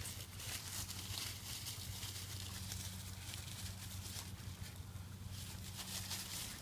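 Puppies scampering over dry leaves and dirt, with light rustling and pattering of paws over a steady low hum that stops near the end.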